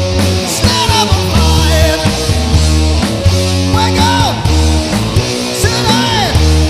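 Live punk rock band playing loudly: distorted guitars, bass and drums with a singer's voice over them.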